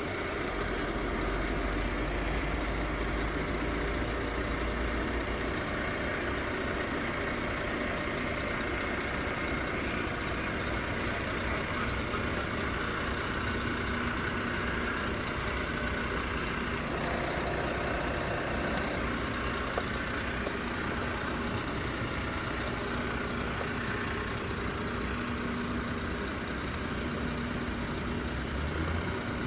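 Truck engine running steadily, with a deep rumble that is strongest in the first few seconds.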